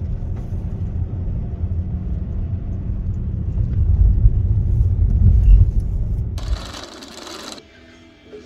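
Low rumble of a car driving on the road, heard from inside the cabin, growing louder about four to five seconds in. Near the end a burst of hiss lasts about a second, then the rumble is gone.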